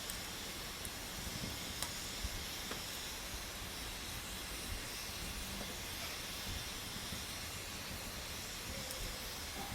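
Wood campfire burning: a steady hiss with scattered sharp crackles.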